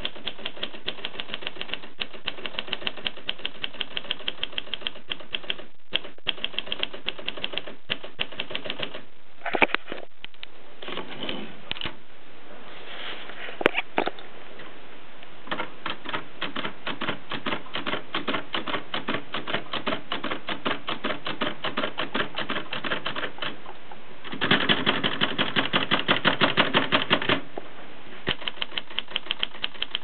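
Groma Kolibri manual portable typewriter being typed on: a steady run of key strikes, several a second, broken by short pauses. A few single louder clacks come in the first half, and a faster, louder burst of strikes comes late on.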